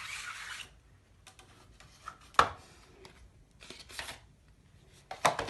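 Packaging of a pair of earbuds being handled and opened by hand: a rubbing, sliding noise that stops under a second in, then scattered sharp clicks and short rustles, the loudest about two and a half seconds in and a quick pair near the end.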